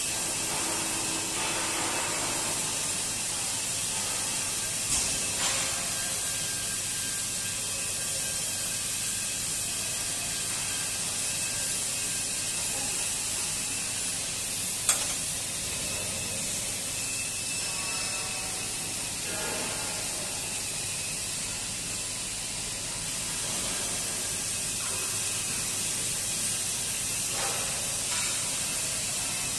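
Steady high hiss of fabrication-shop background noise, with a couple of faint knocks early on and one sharp metallic click about halfway through.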